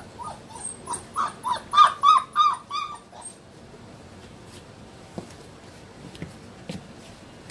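Irish Wolfhound puppy whining in a quick run of about eight short, high cries for about two seconds, around feeding bowls. Then a few faint clicks from the bowls as the puppies eat.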